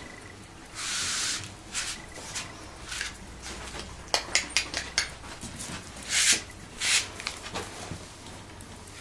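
Brussels griffon puppies moving about on a tiled floor: a few short hissy noises, and a quick run of light clicks about four to five seconds in.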